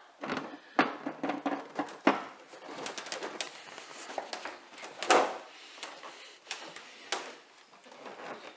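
Scattered knocks, taps and rustling as a moulded rear spoiler is lowered onto a pickup's roof and pressed into place by hand, the loudest knock about five seconds in.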